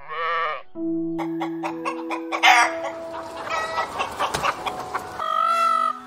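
A sheep bleats once at the start, one short quavering call. A busy stretch of mixed short animal calls follows over steady background music.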